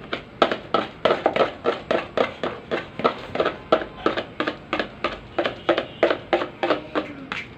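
Spoon knocking against a cooking pot in quick, even strokes, about four a second, as rice is stirred in the water.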